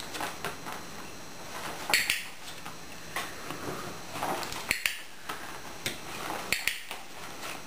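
A string of light, sharp clicks and taps, spaced about half a second to a second apart, with no steady sound between them.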